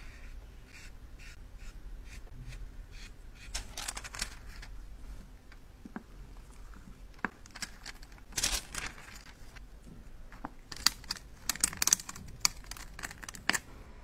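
Makeup being handled and worked by hand: a run of light clicks and taps, with louder scraping strokes about four seconds in, around eight seconds, and several more near the end.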